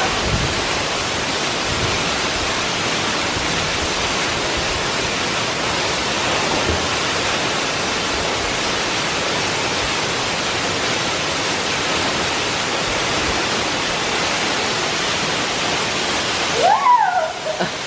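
Waterfall rushing, a steady, even roar of falling water. It cuts off suddenly near the end, and a brief high voice-like call follows.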